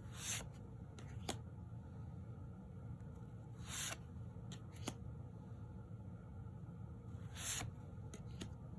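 Tarot cards slid one at a time off the front of a hand-held deck: three soft swishes about three and a half seconds apart, the first two each followed about a second later by a sharp click of card against card, with a few fainter ticks near the end.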